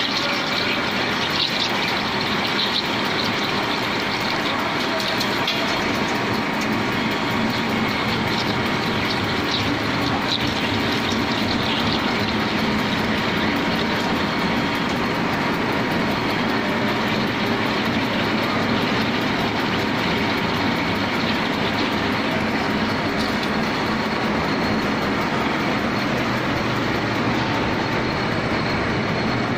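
Jinan Fast HZ500 CNC drilling machine cutting a steel part, a steady, even machining noise from the spindle and tool, with coolant spraying onto the cut.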